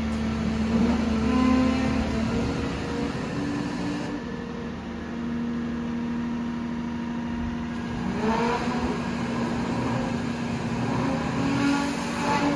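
Caterpillar MH3024 wheeled material handler's diesel engine and hydraulics running steadily, the note shifting in pitch as the boom moves. In the second half the note rises as the cab is raised on its hydraulic riser.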